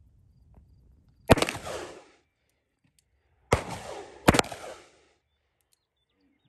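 Three shots from a 3-inch stainless .357 Magnum revolver firing magnum loads. One comes about a second in, then two more close together about two seconds later, each trailing off in a brief echo.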